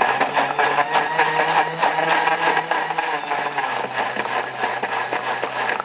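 Blender at maximum speed crushing frozen lulo fruit pulp with water, a loud steady motor whirr with frequent knocks of frozen pieces against the jar. The motor note drops a little about two-thirds of the way through.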